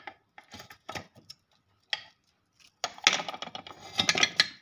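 Metal pump parts being handled: a few light clicks and clinks, then from about three seconds in a dense run of rattling and scraping, metal against metal.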